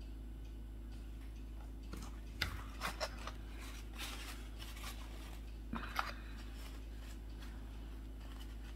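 A small painted tabletop miniature being handled and put down on a tabletop: a few light clicks and taps with some soft rustling, between about two and six seconds in.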